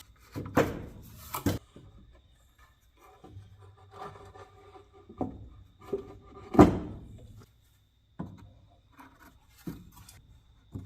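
Half a dozen separate knocks and some scraping as a sand casting mold is worked on by hand, the loudest knock about two-thirds of the way through.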